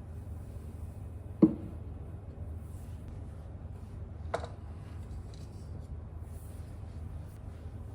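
Kitchen range hood fan running with a steady low hum. A sharp clack comes about one and a half seconds in, and a lighter knock comes a few seconds later.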